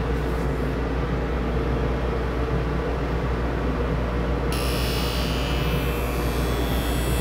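Skate sharpening machine running with a steady hum. About four and a half seconds in, a high grinding hiss starts suddenly and carries on as the hockey skate blade is run along the spinning sharpening wheel.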